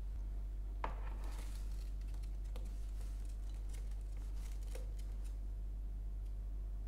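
A ceramic mug is set down on a desk with a knock about a second in, followed by a run of light clicks and scratchy rustles, over a steady low hum.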